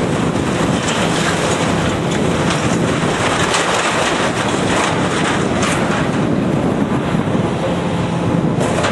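Heavy demolition machine running steadily, its diesel engine a constant hum under scattered knocks and scrapes as the steel structure is pulled apart.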